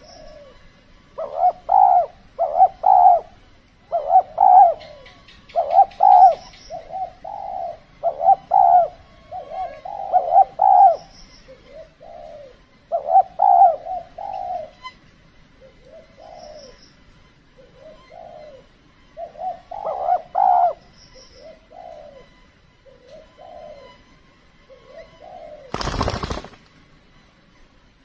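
Spotted doves cooing in repeated short phrases of several notes, louder and fainter calls alternating: a decoy dove calling a wild dove in. Near the end there is a brief loud burst of noise.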